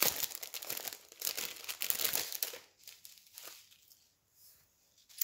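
Small plastic bags of diamond-painting drills crinkling as they are handled, a dense crackle that dies away about halfway through.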